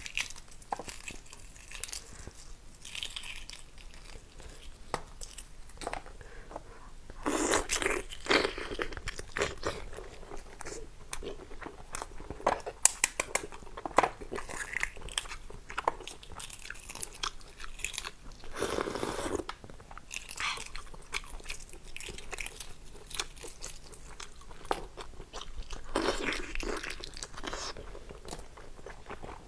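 Eggshell of a boiled maodan (fertilised chicken egg) cracking and being peeled by hand, with many small crackling clicks, and close-miked chewing and biting as the egg is eaten, loudest in a few short spells.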